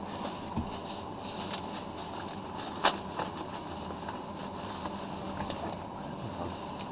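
Steady low mechanical hum with a faint hiss, overlaid by a few light knocks and clicks; one sharper click about three seconds in.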